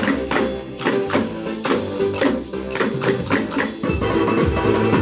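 Adyghe dance music played by a percussion noise orchestra: tambourines and other hand percussion strike an even beat, about two and a half a second, over a melody. About four seconds in, the jingling strikes give way to lower drum beats.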